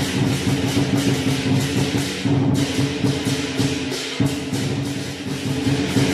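Lion dance percussion: a large Chinese drum beating a fast, steady rhythm with crashing cymbals and gong, several strokes a second.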